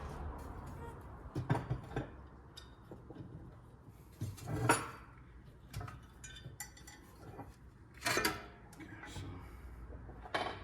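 Metal clinks and knocks of hand tools and small steel parts: an Allen key working out the brake disc's retaining screw on a front hub, with a few louder knocks scattered through.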